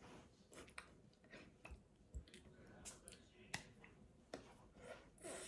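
Near silence broken by faint, scattered clicks and soft taps: the small hand and mouth noises of a person signing in American Sign Language.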